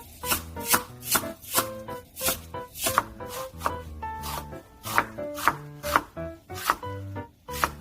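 Kitchen knife chopping on a cutting board in a steady rhythm of about two to three cuts a second, over background music.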